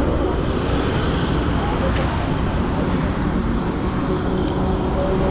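Suzuki Hayabusa Gen3's inline-four engine running steadily at low revs through an Ixil aftermarket exhaust, amid busy street traffic noise and voices.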